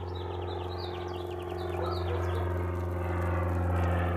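A steady low engine hum running throughout and slowly growing louder, with a bird giving a quick series of short, high, downward-sliding chirps during the first two seconds or so.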